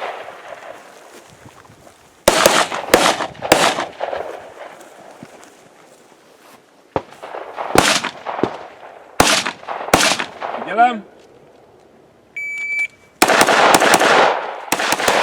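Rifle shots ringing out with echo: a group of three, then several more spaced about a second apart. A shot timer's short steady beep follows near the end, and rapid rifle fire comes straight after it.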